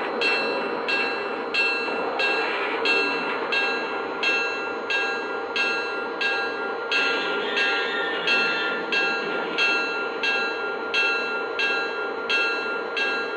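Lionel Legacy Santa Fe Gold Bonnet O gauge diesel locomotive's onboard sound system ringing its bell steadily, about one and a half strokes a second, over the running diesel engine sound and the rumble of the model rolling slowly along the track.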